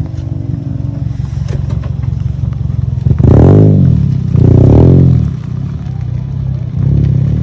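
Toyota Corolla engine through an aftermarket HKS exhaust muffler, running low and steady, then revved twice in quick succession, each rev rising and falling over about a second, with a smaller blip near the end.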